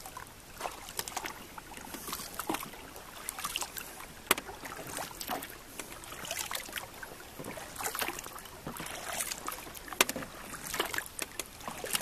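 Paddling a folding kayak: water splashing and dripping off the double paddle's blades with each stroke, about one every second, with a couple of sharp knocks.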